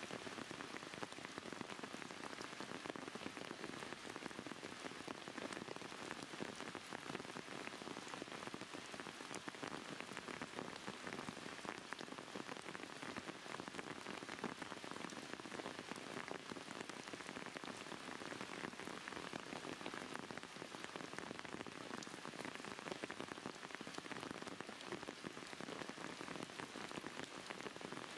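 Steady rain falling on surfaces: an even hiss dotted with many small drop impacts.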